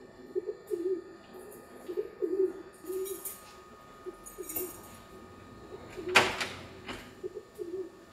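A dove cooing over and over in short low phrases. Keys jingle about three seconds in and again a second later, then a loud clack from the lock and latch of a wooden front door as it opens about six seconds in, followed by a softer click.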